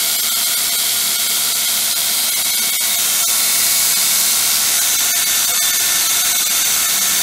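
Heretic 2" x 72" belt grinder running free at top speed, around 7,000 surface feet per minute, with nothing held to the belt: a loud, steady hiss.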